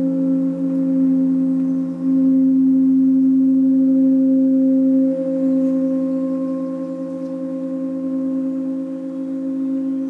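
A sound-bath metal instrument ringing with several steady, sustained low tones that hum and waver, swelling again about two seconds in and easing off after about five seconds.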